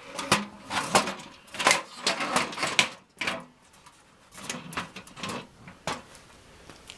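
Irregular knocks and clicks of the aluminum fire-table pedestal and its metal parts being handled and turned over.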